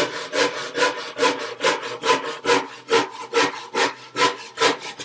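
Handsaw cutting through a pine board by hand, a steady rhythm of rasping strokes, a little over two a second.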